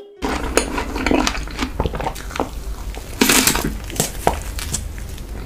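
Eating sounds: a man biting into and chewing whole strawberries with whipped cream, a run of irregular wet crunches and clicks, loudest a little past three seconds in.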